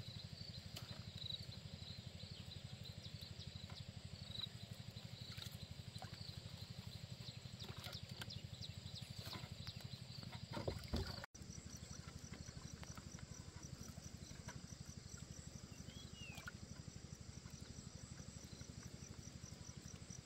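A bamboo boat being rowed on a lake: water trickling around the oars over a low steady hum, with a thump about halfway through. After that, insects chirp in a steady even rhythm, and a bird gives two short chirps near the end.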